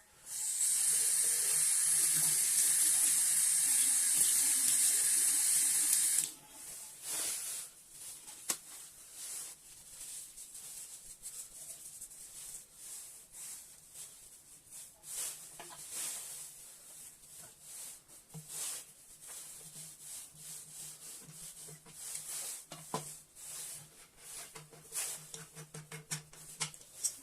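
Water running hard from a faucet into a sink as a steady rushing hiss, cut off suddenly about six seconds in. After that, scattered light clicks and knocks.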